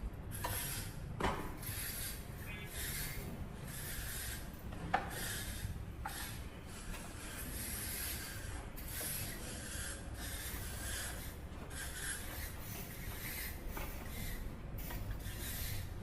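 Repeated scraping strokes, a little more than one a second, over a low rumble, with two sharp clicks near the start.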